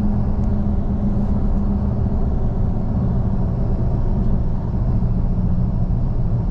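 Steady road and engine rumble heard inside a moving car's cabin, with a constant low hum.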